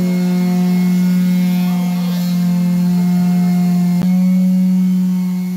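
Electric orbital sanders running steadily as they sand old wooden church pew boards, a loud, even buzzing hum with a short click about four seconds in.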